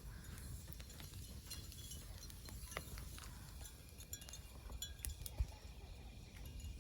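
Faint scattered light clicks and clinks over a low outdoor rumble, with a soft thump a little over five seconds in.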